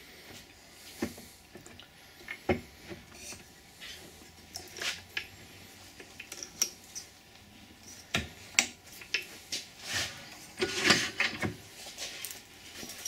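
Scattered clicks, knocks and metal clunks from setting up a small wood lathe that is not running: a square wooden blank being seated between the centres, the tailstock wound in and the tool rest clamped, with a busier cluster of knocks a little over halfway through.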